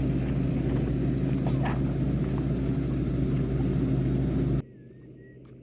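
Steady drone of a rice-harvesting tractor's engine running close by. It cuts off abruptly about four and a half seconds in, leaving a much quieter background.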